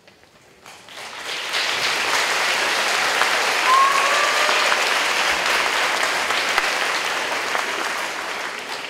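Audience applauding after a poem reading: clapping swells in about a second in, holds steady, then fades away near the end. A brief high-pitched sound rises out of the clapping about four seconds in.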